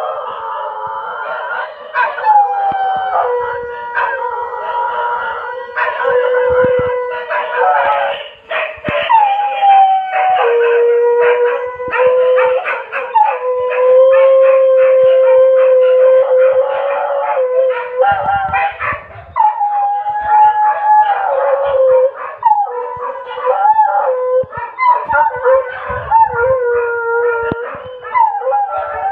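Dogs howling: long drawn-out howls overlapping at different pitches, some sliding down in pitch at their ends.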